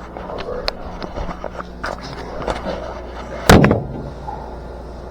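A scattering of light clicks and knocks, with one loud bang about three and a half seconds in, over a steady low hum.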